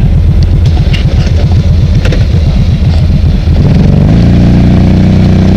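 Off-road ATV or side-by-side engine running with a pulsing low beat, then revving up about three and a half seconds in and holding at higher revs.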